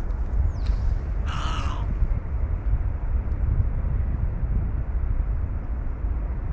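A crow gives one caw about a second in, over a steady low rumble that runs throughout.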